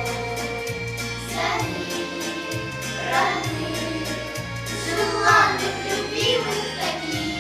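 A group of children singing a song together over an instrumental backing track with a steady bass line.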